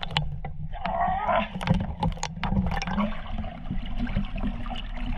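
Seawater sloshing, splashing and gurgling around an action camera held half-submerged at the waterline, with many small sharp splash clicks, as a freediver surfaces. A brief wavering pitched sound comes through about a second in.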